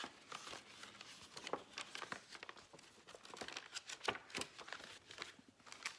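Paper pages of a handmade junk journal being turned and handled: irregular soft rustling and crinkling, with a sharper tap about four seconds in.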